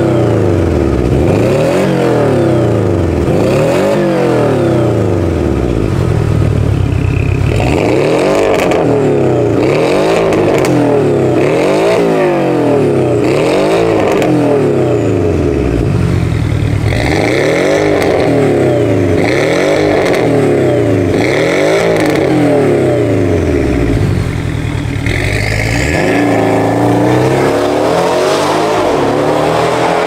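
Porsche 718 Boxster engine revved over and over through a Fi Exhaust valvetronic catback and catless downpipes, each rev rising and dropping back in about a second. Near the end comes one longer, climbing rev.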